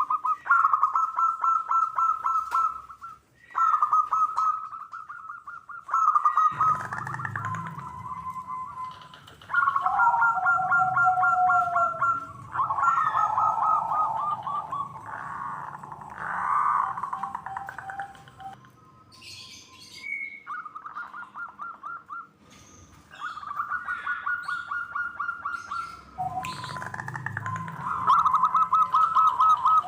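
Zebra doves (local perkutut) cooing: one phrase after another of rapid staccato trilled notes, some ending in a lower note that slides downward, with short gaps between phrases.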